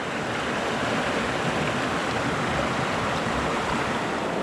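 Small mountain creek flowing steadily, an even rush of water.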